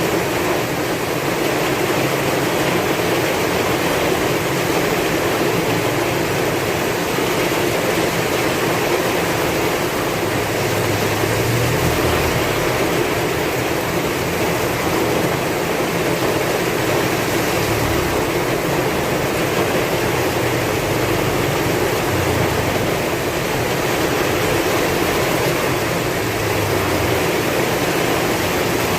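Heavy rain with strong wind: a dense, steady hiss, with a few brief low swells underneath from about ten seconds in.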